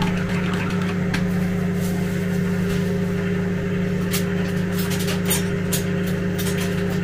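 Microwave oven running with a steady electrical hum while it heats food. A spoon clinks against a mug in the first second or so, and light scattered clicks follow.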